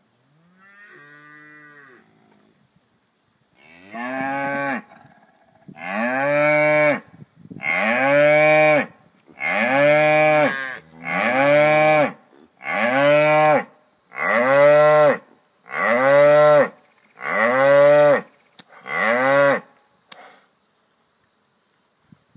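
Cattle mooing: one faint moo, then a series of about ten loud moos, one every second and a half or so. Each moo rises and then falls in pitch.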